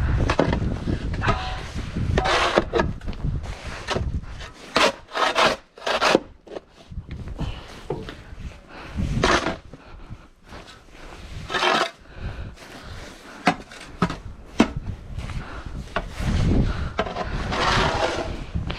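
Snow shovel scraping and pushing through packed snow in irregular strokes, with a low wind rumble on the microphone.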